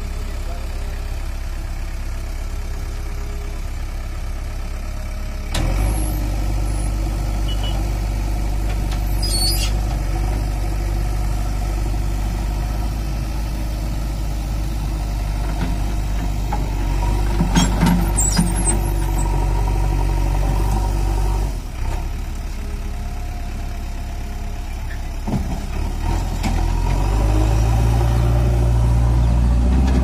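JCB 3DX backhoe loader's diesel engine running under hydraulic load. It steps up to a louder, higher steady note about five seconds in, drops back about two-thirds of the way through, and climbs again near the end. Several brief clicks and squeaks come through in the first two-thirds.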